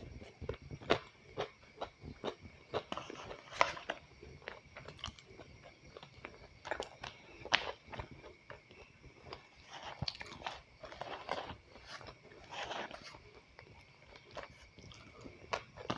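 A person eating close to the microphone: irregular crunching and chewing of fried rice and fried chicken nuggets, with short sharp crunches every second or so.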